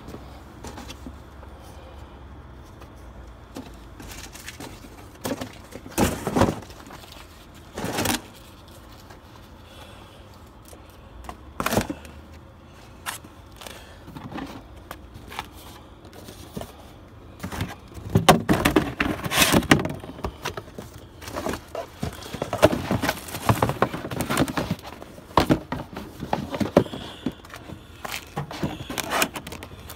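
Cardboard shoe boxes being handled and crushed underfoot on concrete. A few separate thumps come in the first twelve seconds, then long stretches of crunching and crumpling cardboard in the second half.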